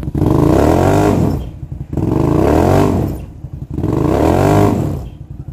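Quad (ATV) engine revved hard three times, each rev climbing and then falling back in pitch, with a throbbing idle between. The quad is fighting for grip on a steep muddy climb while being pushed.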